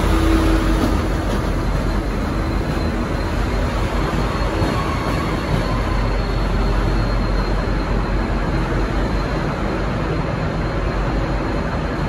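V/Line N class diesel-electric locomotive running as it draws away, a steady low engine rumble mixed with wheel-on-rail noise, easing a little in the first couple of seconds and then holding steady.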